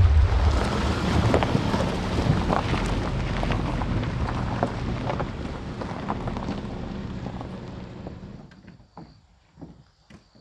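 Wind buffeting the microphone with a low rumble and scattered crackles, dying away about eight seconds in. Crickets then chirp faintly with a steady high trill.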